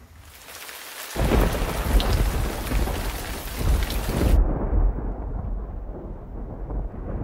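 Rain-and-thunder sound effect. A hiss of rain comes first, then a deep rumble of thunder about a second in. About four seconds in the hiss cuts off abruptly, leaving a muffled rumble.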